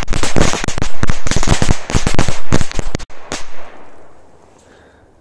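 Firecrackers going off in a rapid, crackling series of sharp bangs that stops about three seconds in, followed by one last bang and a fading echo. A single sharp bang comes right at the end.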